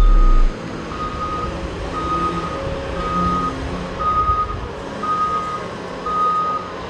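Reverse alarm of a heavy mining truck beeping at a steady pitch, about once a second with each beep lasting about half a second, over the low rumble of the truck's engine.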